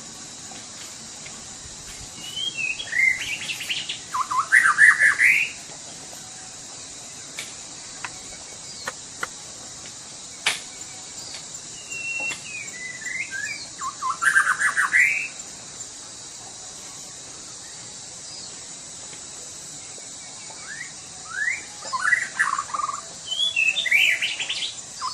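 White-rumped shama (Sumatran murai batu) singing in three bouts of quick whistled phrases, each a few seconds long, with pauses of several seconds between them.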